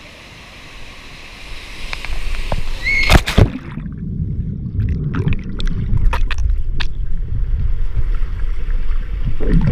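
Waterfall running steadily, then a splash about three seconds in, followed by loud, muffled sloshing and gurgling water.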